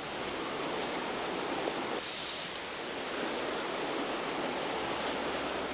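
Steady rush of river water running over a riffle, with a short high buzz about two seconds in from a fly reel's click drag as fly line is pulled off it.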